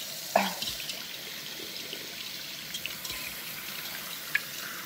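Kitchen faucet running, a steady splash of tap water, with a short knock from the rice cooker's inner pot being handled about half a second in.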